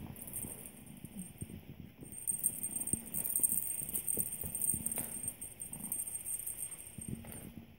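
Kittens' paws patting and scampering on a wooden floor, an irregular run of soft taps and thumps, with the light rustle of a ribbon wand toy swishing.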